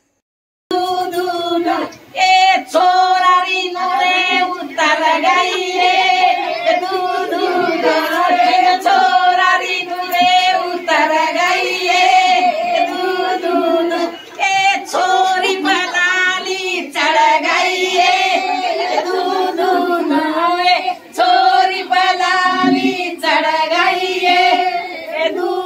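A group of women and girls singing a Banjara Teej folk song together, unaccompanied, with long held notes; the singing begins just under a second in.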